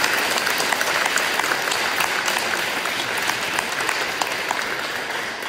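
Audience applauding, many hands clapping together, slowly tapering off near the end.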